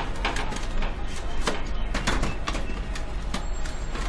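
Steady low electrical hum under constant background noise, with several short sharp clicks scattered through it.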